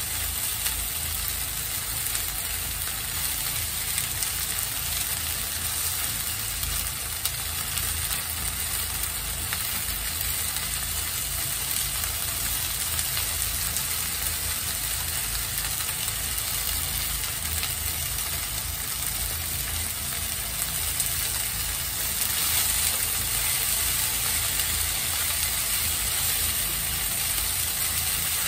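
Shrimp sizzling steadily as they fry in oil in a nonstick frying pan, with a low steady rumble underneath; the sizzle gets a little louder about three-quarters of the way through.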